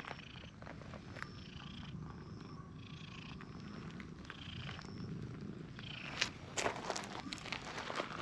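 A cat purring close by, a steady pulsing low rumble, with a few brief scratchy noises about six seconds in.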